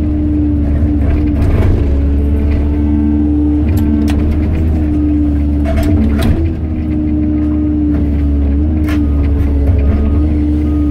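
Excavator diesel engine and hydraulics running steadily under load, a held drone with a constant whine, while the pulverizer's jaws crush concrete rubble with several sharp cracks and crunches scattered through.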